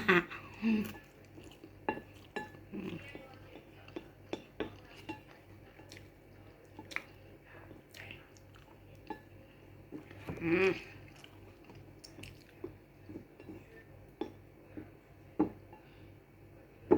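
Eating instant pancit canton noodles: scattered, irregular clicks and taps of utensils against the dish, with chewing in between.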